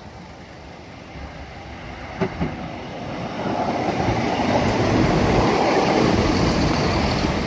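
Class 170 Turbostar diesel multiple unit passing over the level crossing: rumbling engine and wheel noise building from about three seconds in and loudest a little past the middle, with two short knocks just after two seconds.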